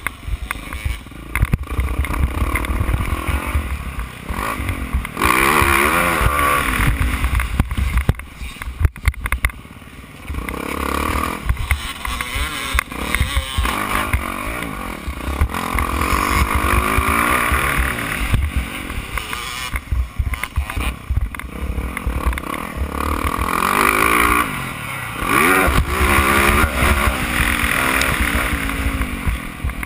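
A 450cc four-stroke motocross bike's single-cylinder engine at race throttle, heard from onboard: it revs up hard several times and backs off in between, with heavy wind buffeting on the microphone.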